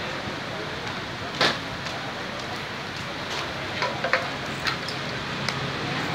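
Steady background noise at a roadside food stall, broken by a few sharp clicks and knocks, the loudest about a second and a half in and a small cluster near the middle.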